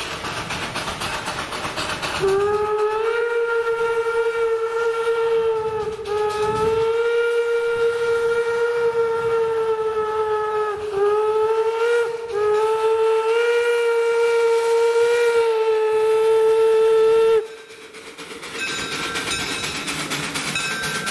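Steam whistle of a two-foot-gauge steam locomotive blowing the grade-crossing signal: two long blasts, one short, then a final long one. The locomotive's exhaust chuffs under it as the engine works toward the crossing, and the chuffing is heard on its own before and after the whistle.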